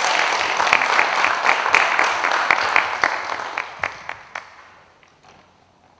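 Audience applauding, thinning to a few scattered claps and dying away about four and a half seconds in.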